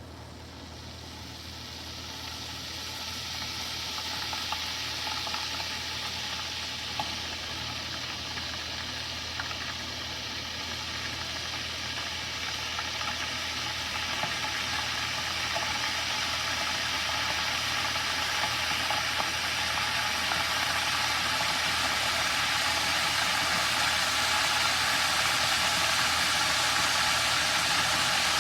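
Ninja electric kettle heating water: a rushing hiss that grows steadily louder as the water comes up toward the boil.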